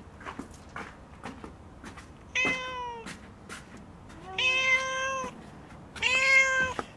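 Tabby-and-white cat meowing three times, the first call short and falling at its end, the next two longer. Faint clicking before the first meow.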